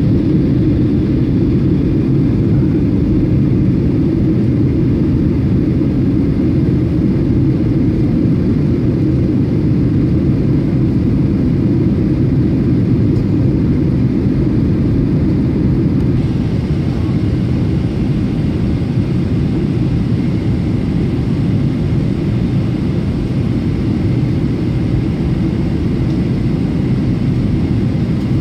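Steady cabin noise of a jet airliner descending on approach: an even, deep rumble of the engines and rushing air, heard from inside the cabin. The hiss above the rumble grows a little brighter about halfway through.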